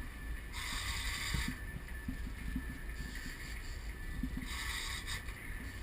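Fishing boat at sea: a steady low rumble with two hissing rushes, like water washing past the hull, each about a second long, one near the start and one near the end.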